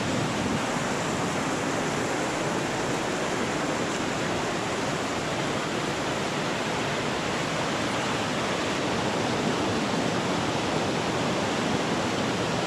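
Fast-flowing mountain creek rushing over rocks: a loud, steady, even rush of water that does not change.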